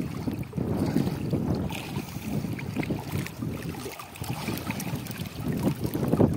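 Water splashing and sloshing in a river, with wind buffeting the microphone in an irregular low rumble.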